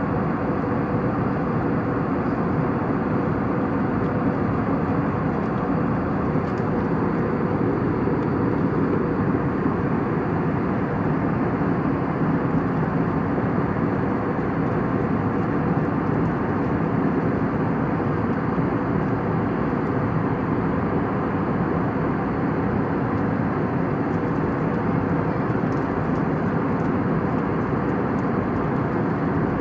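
Steady aircraft cabin noise in flight: an unbroken rushing hum of engines and airflow, with a faint steady drone underneath.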